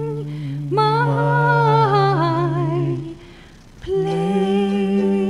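A man and a woman singing a slow, drawn-out line in two-part harmony, the notes held long with a slight vibrato. The singing breaks briefly about three seconds in, then a ukulele chord is strummed and the voices come back on a new held note.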